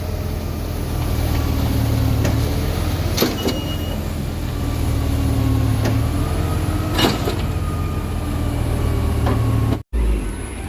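Concrete pump's diesel engine running steadily, with a sharp clack about every four seconds as the pump cycles. The sound drops out for an instant near the end.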